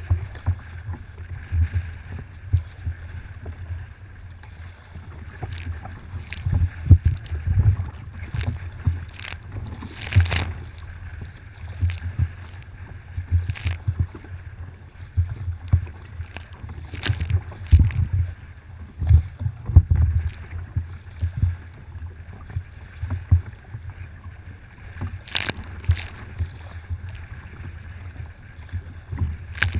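Wind buffeting the microphone of a deck-mounted camera on a kayak, a low rumble that swells and drops with the gusts. Over it come irregular sharp splashes as the paddle and the chop strike the water and the hull.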